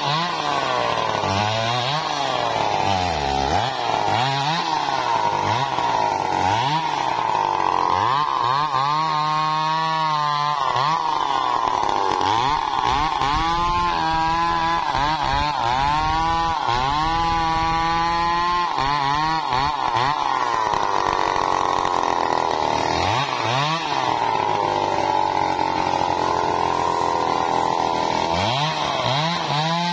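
Stihl MS 381 two-stroke chainsaw cutting through a large teak log, running continuously at high revs, its pitch repeatedly dipping and climbing back as it works through the cut.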